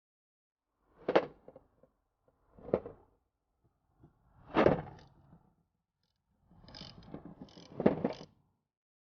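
Parts and tools being handled in a repair job: three separate clunks about a second and a half apart, then a longer clatter that ends in a sharp knock.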